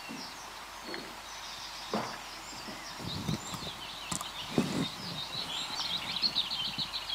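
Outdoor ambience with birds chirping over a steady hiss. The chirping gets busier toward the end, and a few soft low thumps come in the middle.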